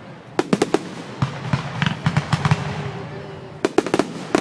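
Fireworks going off: clusters of quick, sharp cracks and pops in rapid succession, coming about half a second in, around two seconds, and again near the end.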